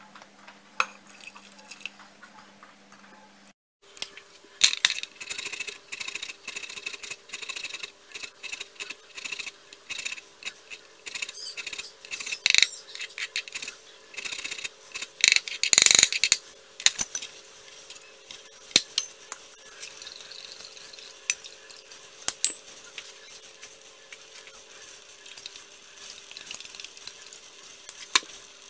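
Kitchen prep at a counter: a utensil clinking and stirring in a glass measuring jug, with knocks on a wooden cutting board, heard as a long run of short clicks and clinks with a louder clatter about sixteen seconds in. A faint steady hum runs underneath.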